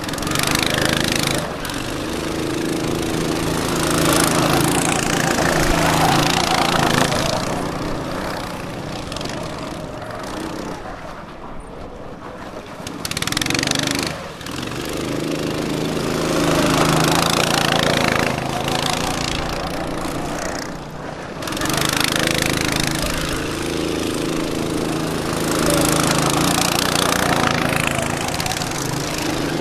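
Rallycarts' small engines running and revving as the karts drive past close by, the pitch rising and falling with each pass. The sound drops off for a couple of seconds about halfway through before the next kart comes by.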